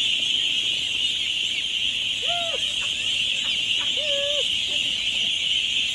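A dense, steady chorus of many ducklings peeping at once, high-pitched and continuous. Three short, mid-pitched calls sound over it, about two seconds apart.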